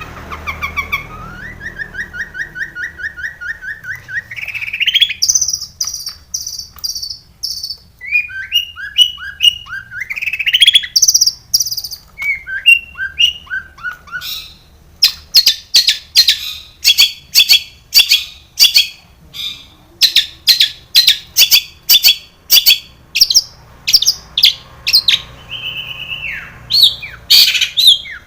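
Long-tailed shrike (cendet) singing a varied song full of mimicked phrases: a fast trill near the start, clusters of high chips and repeated sliding notes, then a long run of sharp, rapid chips.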